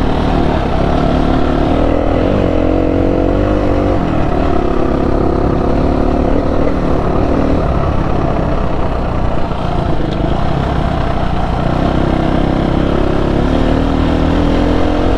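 Dual-sport motorcycle engine running under way, its revs climbing and dropping several times, with a constant rush of riding noise underneath.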